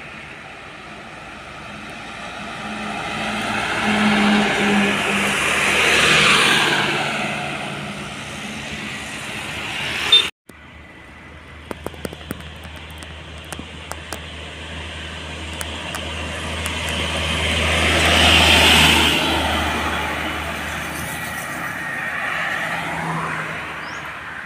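Trucks passing by on a road: engine and tyre noise swells to a peak and fades away, several times. After a brief break about ten seconds in, a truck approaches with a low, steady diesel drone, passes loudest a little after halfway, then fades.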